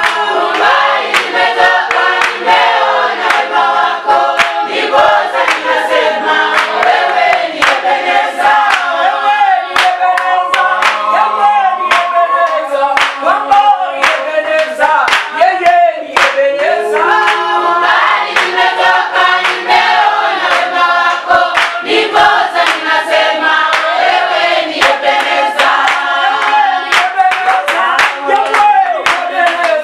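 Church congregation singing a praise and worship song together, with hand clapping keeping the beat.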